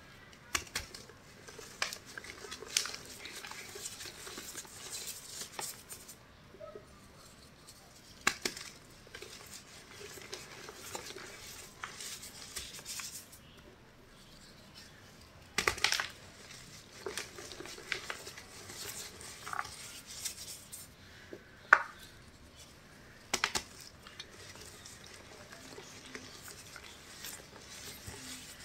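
Hands squeezing and rubbing loose white powder around ring-shaped moulded blocks, giving soft powdery crunching and rustling. A few sharper cracks or knocks stand out, the loudest about two thirds of the way in.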